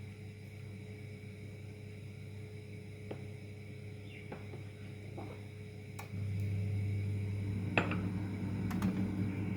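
Scattered light clicks and taps of kitchen dishes and utensils over a steady low hum, which gets louder about six seconds in.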